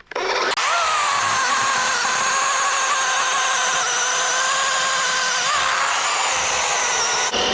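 Dewalt 20V cordless electric chainsaw with a 12-inch bar spinning up with a rising whine and running steadily as it cuts into a log, then switched off suddenly partway through the cut.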